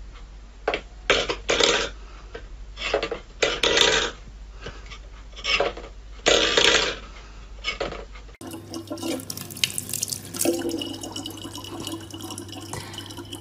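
A stainless steel bowl clattering and scraping on a wooden floor, struck several times as a cat paws at it. About eight seconds in, this gives way to a thin stream of tap water running steadily, with a low hum beneath it.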